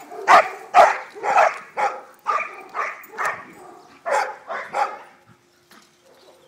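A dog barking repeatedly in play, about two barks a second, stopping about five seconds in.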